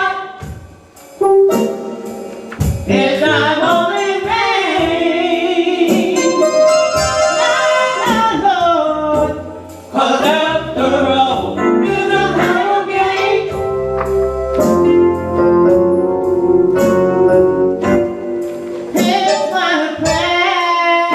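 Gospel singing with instrumental accompaniment, the music dipping briefly about a second in and again just before ten seconds in.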